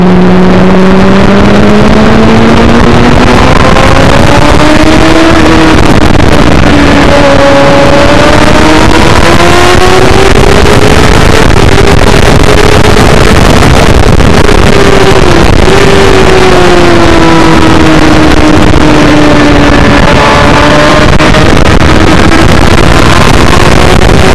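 Suzuki GSX-R600 K7's inline-four engine running hard on track, its revs climbing and falling through the corners, with a brief dip about fifteen seconds in. Heavy wind noise on the bike-mounted microphone runs underneath, very loud throughout.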